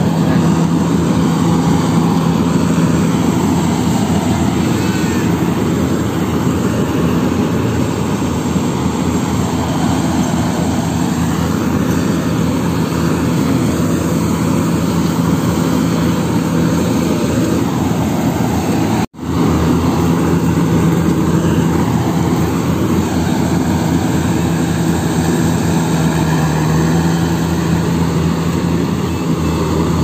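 Yanmar AW70GV combine harvester running steadily under load as it cuts and threshes rice, its diesel engine and machinery giving an even drone. The sound drops out for a moment a little past halfway through.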